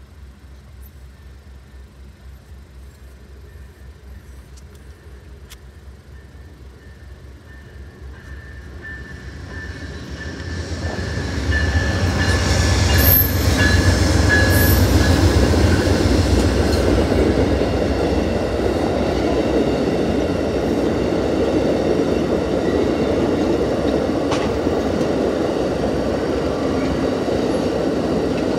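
An Amtrak passenger train passing close by. The rumble of its twin GE Genesis P42DC diesel locomotives builds over several seconds and is loudest as they go by, with a high steady tone over it. The passenger cars then roll past with a steady rush of wheel and rail noise.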